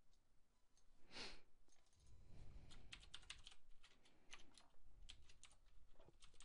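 Faint typing on a computer keyboard: a quick run of key clicks starting about two and a half seconds in, with a few more near the end. A brief soft hiss comes about a second in.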